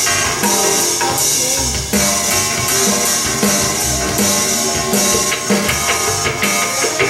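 Electronic music with a steady drum beat and sustained synth tones, played live from a laptop and keyboard controller through Roland speaker cabinets.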